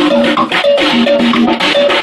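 Live jazz-fusion band playing: a drum kit and percussion under a busy riff of short, quickly repeated notes.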